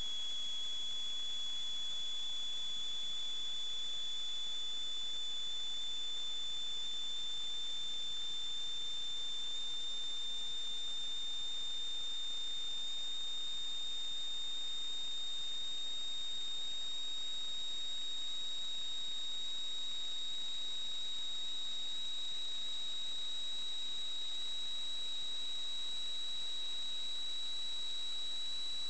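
Steady high-pitched electronic whine that creeps slowly upward in pitch, with a fainter higher tone above it, over a constant hiss.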